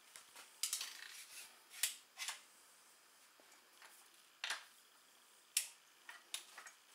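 A series of short, light clicks and clinks at uneven intervals, the sharpest about two seconds in and again about five and a half seconds in: handling noise, not a crossbow shot.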